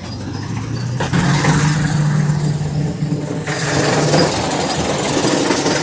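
A large engine running steadily with heavy mechanical noise. It comes up sharply about a second in and gets harsher and noisier about halfway through.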